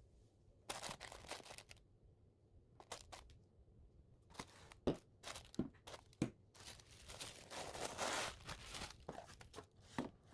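Handling noises: bursts of rustling and crinkling, with several sharp knocks in between.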